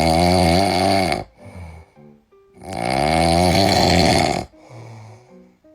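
French bulldog snoring: two long, loud snores of about two seconds each, with soft background music in the gaps.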